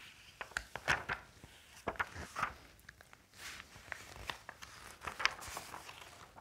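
Pages of a paperback picture book being handled and turned: an irregular string of soft paper rustles and small taps.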